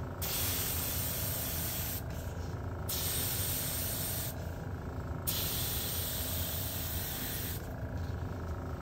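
Airbrush hissing as it sprays paint through a handheld stencil, in three bursts of about two seconds each with short pauses between.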